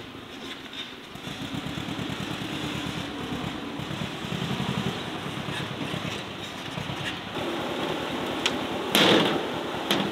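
Tractor engine running steadily with a rapid low pulsing, growing louder over the first couple of seconds. About nine seconds in, a short loud clatter stands out above it.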